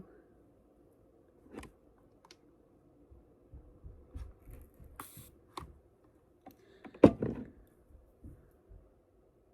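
Scattered small clicks and knocks of objects being handled and set down, with one louder knock about seven seconds in.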